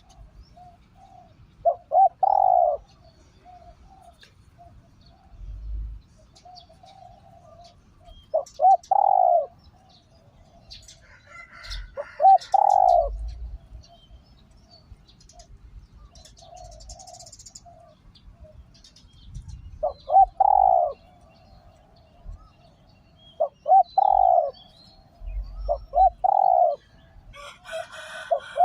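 Spotted dove cooing: a caged decoy bird calling to draw in wild doves. It gives short phrases of two or three coos, about seven times, a few seconds apart, with a few faint higher chirps from small birds between them.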